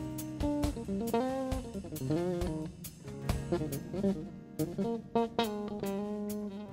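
Live rock band playing an instrumental passage: guitar notes, some of them bent, over bass guitar and drums.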